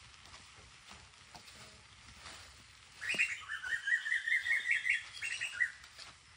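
A bird singing: a quick run of chirping notes for nearly three seconds, starting about three seconds in, over faint clicks.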